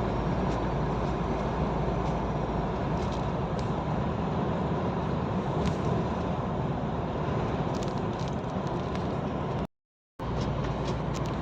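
Steady engine and road noise from inside a moving truck's cab, a low even hum with faint ticks. The sound cuts out completely for about half a second near the end.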